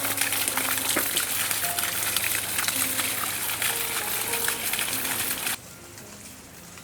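Steady splashing rush of running water from a stream or water feature, cutting off abruptly about five and a half seconds in.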